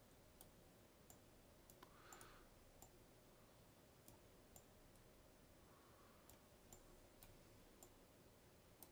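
Faint computer mouse clicks, scattered irregularly about once every half second to second, over near-silent room tone: the clicks of picking up and dropping sticky notes while dragging them around a web page.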